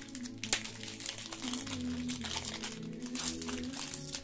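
Foil booster-pack wrapper crinkling as it is worked and pulled open by hand, with a sharp crackle about half a second in.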